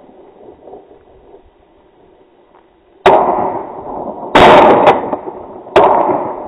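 Three shotgun shots fired at flushing quail, starting about three seconds in and coming a little over a second apart. Each is a sharp report that dies away briefly, and the middle shot is the loudest.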